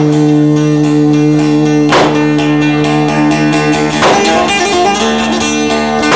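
Bağlama (long-necked Turkish saz) playing a folk instrumental passage: steady sustained tones with a sharp strummed chord about every two seconds and quick fine strokes in between.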